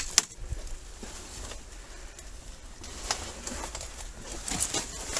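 Footsteps through brush and debris, with a few scattered crunches underfoot.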